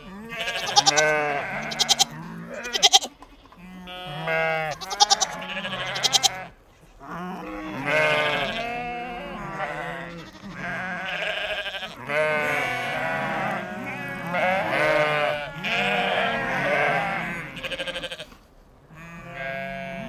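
Goats bleating again and again, several calls following close on one another, each with a wavering pitch.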